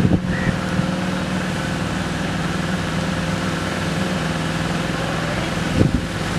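Small boat's motor running steadily at an even pitch. There are two brief knocks, one at the start and a louder one near the end.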